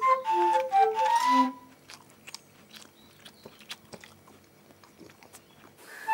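A light flute melody in short separate notes ends on a lower note about a second and a half in. A quiet stretch follows with faint scattered clicks and small sounds of eating, like forks on plates and chewing at a table.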